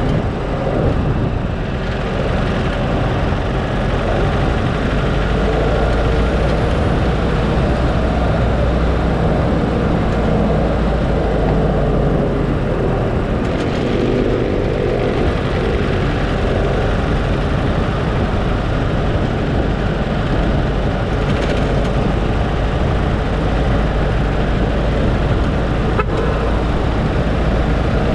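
A car driving along a road: a steady low engine and road rumble, with the engine note drifting up and down as it changes speed.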